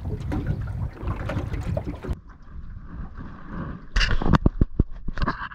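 Wind rushing on the microphone and water noise around a small boat on open water. After about two seconds the noise drops suddenly, and near the end comes a quick run of sharp clicks and knocks.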